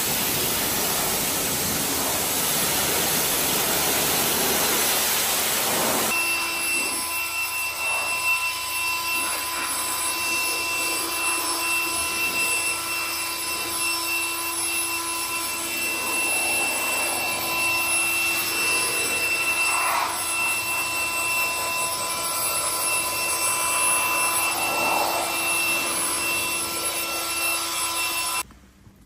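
High-pressure water spray hissing against the car's bodywork, cut off abruptly about six seconds in. It is followed by a cordless handheld air blower running with a steady whine as it dries the tailgate, stopping just before the end.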